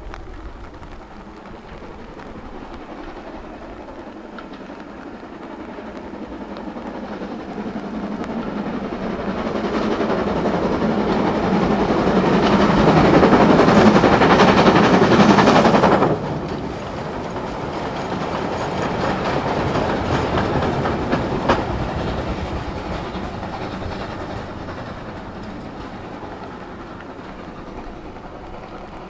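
Steam-hauled train approaching and passing. It grows steadily louder to its loudest about halfway through, drops off suddenly, then rolls on more quietly and fades, with one sharp click along the way.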